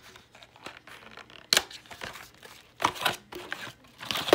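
Plastic packaging of a Blu-ray box set crinkling and tearing as it is opened by hand, with three sharp clicks along the way.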